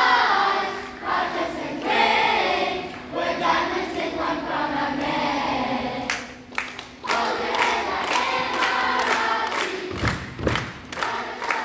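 Children's choir singing together in chorus. From about six seconds in, a run of rhythmic hand claps joins the singing, and there is a low thud near the end.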